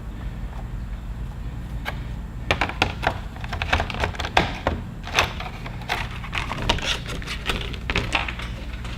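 Hand tools and their packaging being handled: irregular light clicks and knocks, starting about two and a half seconds in and coming thick and fast after that, over a steady low hum.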